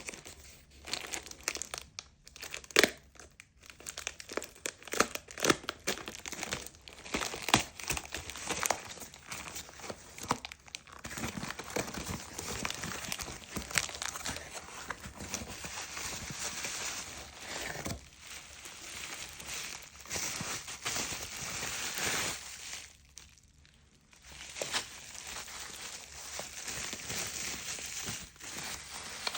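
Packaging crinkling and rustling as it is handled and opened, with scattered sharp clicks and taps. The rustling pauses briefly about four-fifths of the way through.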